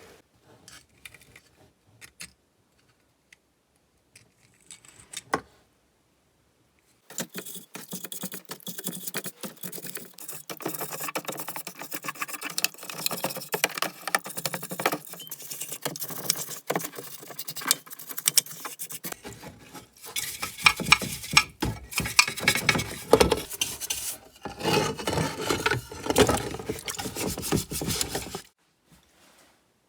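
Chainsaw parts being handled and scrubbed during cleaning: a few scattered clicks, then from about seven seconds in a dense run of rapid clicking and scraping that stops shortly before the end.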